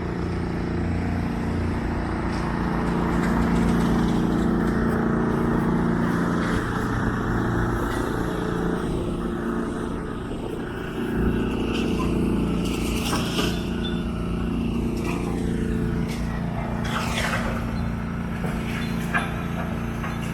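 Heavy engine running steadily, a constant low drone, with a few brief higher-pitched sounds in the second half.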